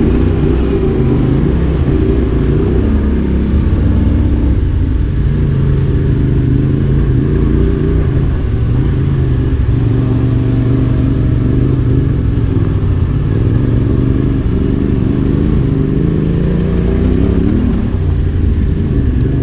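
Yamaha Ténéré 700 parallel-twin engine pulling hard up a steep dirt hill climb, its pitch rising and falling as the rider works the throttle.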